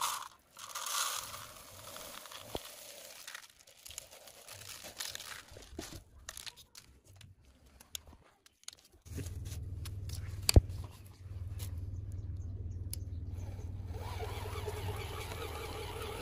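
Paddy grains pouring, rattling and scattering into a toy dump truck's oil-can bed and being handled, with irregular light crunching and clicking. About nine seconds in a steady low hum sets in, and a single sharp click comes about a second later.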